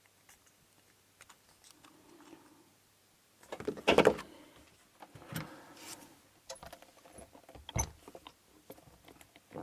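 Metal clicks and rattles as a small pin-tumbler challenge lock and tools are handled while working at the C-clip on the lock. The loudest clatter comes about four seconds in, followed by scattered lighter ticks.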